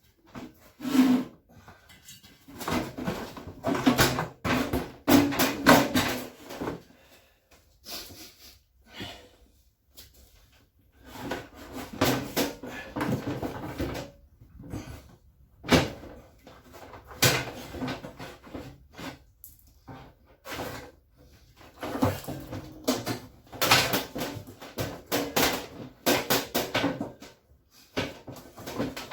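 Irregular clunks, knocks and scraping of an LG washing machine's tub and fittings being handled and set onto the shock absorbers, in clusters of clattering separated by brief pauses.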